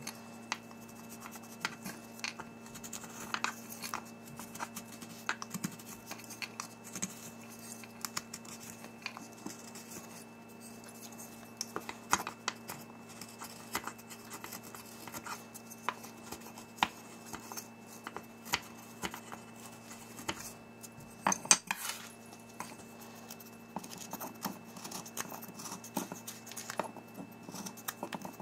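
Folding Opinel knife carving a wooden spoon by hand: irregular short cuts and scrapes of the blade shaving off wood, with a louder cluster of cuts about three-quarters of the way through.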